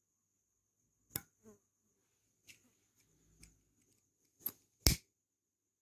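Tweezers and a lighter being handled at the workbench: scattered light clicks and taps, the loudest a sharp click near the end.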